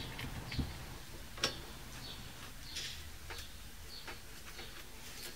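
Faint, scattered light clicks and ticks from a ring spanner and rag being handled at a brake caliper's bleed nipple during brake bleeding.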